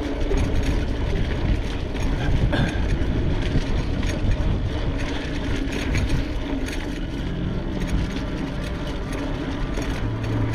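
Steady low rumbling noise, typical of wind buffeting a bike-mounted camera's microphone and tyres rolling over a mountain-bike trail.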